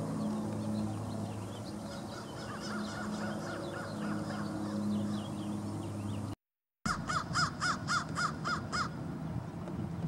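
A crow cawing: faint repeated calls at first, then after a brief dropout a loud, rapid run of about eight caws at roughly four a second, stopping about two seconds later.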